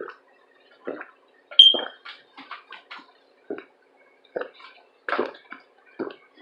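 A person gulping water in steady swallows, about one a second, with a short sharp click a little under two seconds in.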